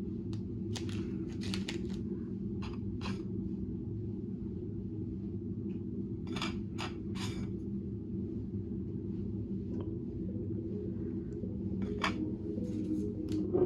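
Steady low hum of the cruise ship's engines and ventilation heard inside a cabin, with scattered light clicks and rustles as paper cards are picked up and handled.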